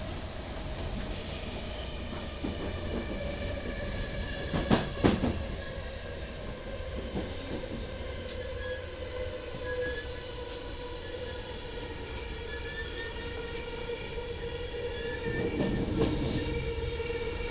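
Intercity passenger train rolling slowly, heard from inside the carriage: a steady rumble under a steady whine. Two sharp knocks come about five seconds in.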